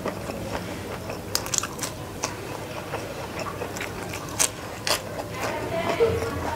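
Close-up chewing of a mouthful of food, with crisp crunches as raw lalapan vegetables are bitten. The sharpest crunches come about one and a half, two and a quarter, and four and a half to five seconds in, with a low thump about six seconds in.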